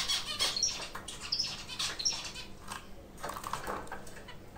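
White zebra finches moving about a wire cage: light scratches, taps and flutters from hopping and pecking, with a few short high chirps.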